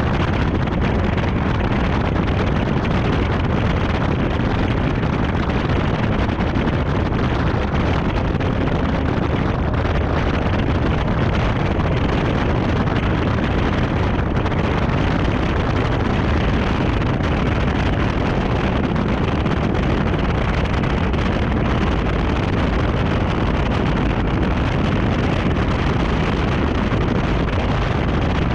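Steady wind rush buffeting a camera mounted low on the outside of a Chevrolet Camaro 1LE beside its tyre, mixed with tyre and road noise as the car drives at speed.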